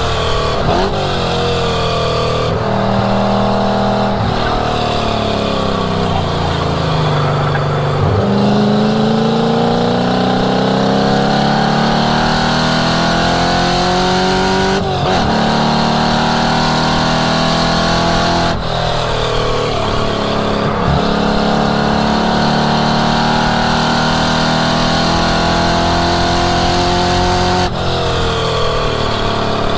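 1967 Mustang's V8 engine being driven hard around a race track, its note climbing in pitch under full throttle and breaking off briefly at each gear change. Partway through, the revs fall away and come back down through the gears, then climb again on a long pull.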